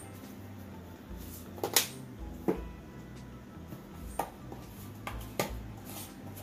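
Four sharp clicks and knocks of a spice container and utensils being handled by the pan, the loudest a little under two seconds in.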